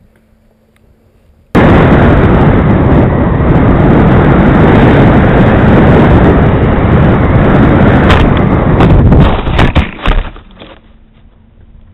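Loud, overloaded rushing noise from a radio-controlled plane's onboard camera microphone, starting abruptly about a second and a half in. Near the end there is a run of sharp knocks and cracks as the plane crashes and bounces, and then the noise stops suddenly.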